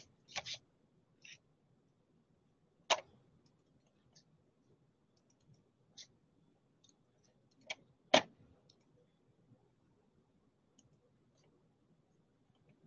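Scattered, irregular clicks of a computer mouse, the two sharpest about three and eight seconds in, with fainter ticks between.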